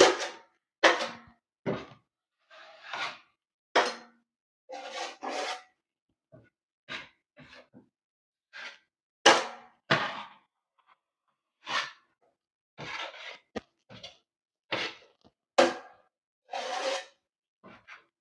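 Metal drywall knife scraping joint compound: a series of short, separate scraping strokes with brief pauses between them.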